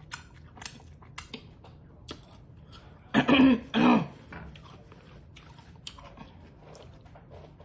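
Close-up eating sounds of someone chewing saucy seafood, with scattered small mouth clicks and smacks. About three seconds in come two short voiced sounds from the eater, like a cough or a hum.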